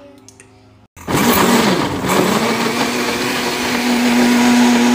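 Countertop blender running, blending soaked dates with coconut milk and vanilla into a thick date caramel. It starts suddenly about a second in, its motor pitch wavers briefly, then holds steady.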